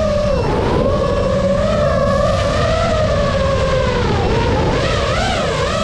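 FPV racing quadcopter's brushless motors and propellers whining in flight, heard from the drone's own onboard camera. The pitch dips and rises several times as the throttle is cut and punched, most clearly about half a second in and again near the end.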